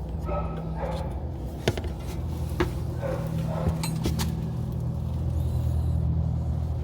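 A few sharp light metallic clicks and knocks as the front ABS wheel speed sensor is pushed back into its mounting, over a steady low machine hum.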